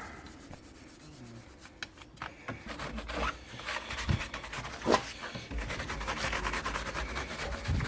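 A brush scrubbing a muddy fat bike coated in Muc-Off cleaner, working the dried mud loose. It makes a dense run of short, scratchy bristle strokes.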